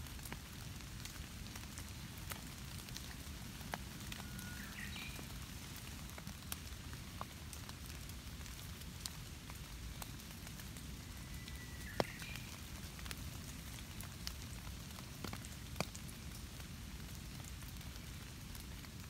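Rain falling on dead leaves and foliage: a steady hiss broken by scattered sharp drip ticks, the loudest about twelve seconds in. Two brief faint chirps come around five seconds in and again near twelve.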